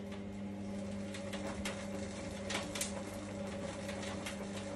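2014 Indesit washer dryer running with a steady electrical hum and scattered irregular clicks and rattles. The hum cuts off with a sharp click near the end.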